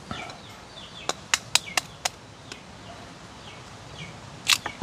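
A knife tapping a chicken egg's shell to crack it: five sharp taps about a quarter second apart, then a louder, longer crack near the end.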